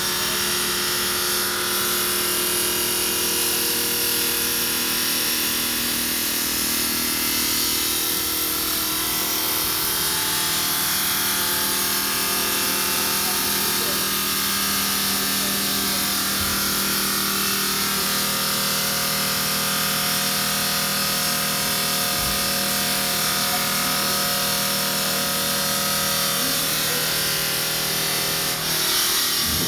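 A machine motor running steadily: a hum of several fixed tones over a high hiss, which changes near the end.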